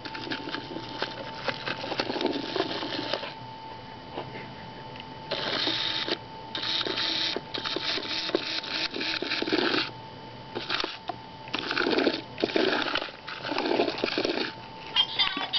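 Small electric motor of a toy K-9 robot dog whirring in repeated spurts, some a fraction of a second and some a few seconds long, as it drives across a hard floor, with a faint steady whine under it.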